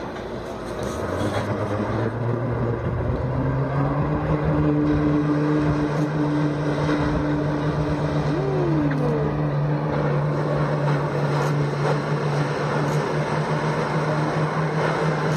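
Jet ski engine revving up a couple of seconds in and then held steady at high revs, driving water up the hose to a flyboard's jets.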